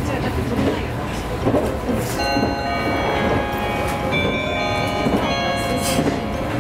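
A train's musical horn plays a short melody of held notes that step through several pitches. It starts about two seconds in and lasts about four seconds, over the steady running noise of the train.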